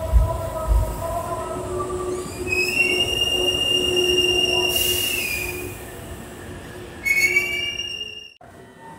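Hankyu train wheels squealing on the rails at the Osaka-umeda terminal, one high squeal held for about three seconds. It follows two low thumps at the start, and a second squeal about seven seconds in cuts off abruptly.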